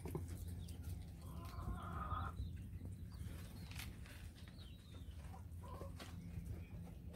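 Farmyard chickens: a hen's drawn-out call about a second and a half in, then a few short clucks, over a steady low hum.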